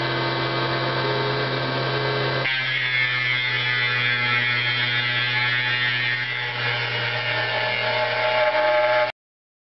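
CNC router spindle running slowly with an end mill cutting into a plastic sheet: a steady hum with several whining tones above it. About two and a half seconds in the sound shifts abruptly to a brighter, higher whine, and it cuts off suddenly near the end.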